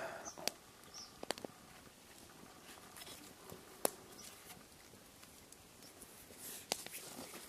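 Hands threading paracord through a small carved wooden stopper: faint rustling of cord and fingers with a few scattered sharp clicks.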